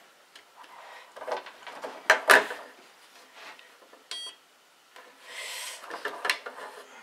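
Small plastic connectors and servo leads being handled and plugged together: a run of clicks and knocks, loudest about two seconds in, and more near the end. A short electronic beep from the servo tester about four seconds in as it powers up.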